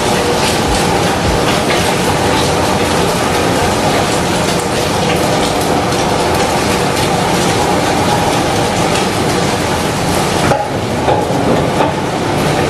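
Food sizzling in a stainless steel frying pan on a portable gas stove, steady and continuous, while a wooden spatula stirs and scrapes it with frequent small clicks against the pan.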